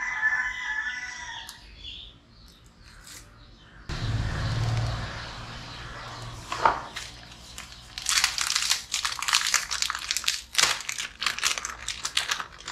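Thin plastic packaging crinkling and rustling as a small earring pouch is handled and pulled open, in dense crackles through the last few seconds. A single sharp snap comes about six and a half seconds in.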